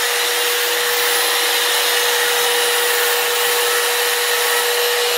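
Handheld electric high-speed rotary tool running steadily at full speed with a constant whine, its bit cutting through a steel plate.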